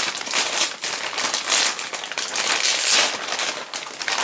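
Plastic packaging bags crinkling and rustling as they are handled and pulled open, a dense crackle of small clicks that swells and fades, loudest about halfway through and again near the end.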